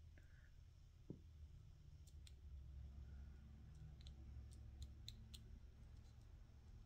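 Faint small clicks from handling a Victorinox Swiss Champ pocket knife as its tweezers are worked from the slot in the scale, a scatter of sharp ticks over a low room hum.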